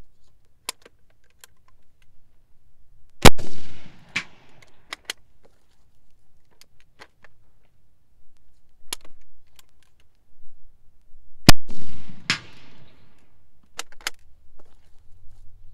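Dreyse needle rifle firing twice, about eight seconds apart, during rapid fire from the prone. Each loud shot has a fading tail and a second sharp crack a little under a second later. Light clicks and rattles of the bolt being opened, reloaded and closed fill the gaps between shots.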